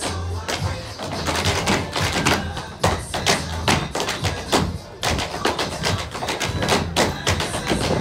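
Several dancers' tap shoes striking a stage floor in quick, tightly choreographed rhythms, over recorded dance music with a steady bass line.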